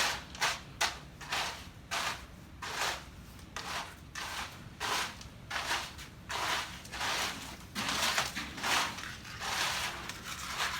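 Rhythmic scraping strokes of a hand tool being dragged across a rough, gritty surface, about one or two strokes a second.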